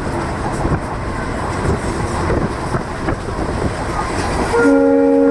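Passenger train running, heard from on board, with wheels clattering over the rail joints. Near the end a locomotive horn starts sounding a loud, steady chord of several tones and holds.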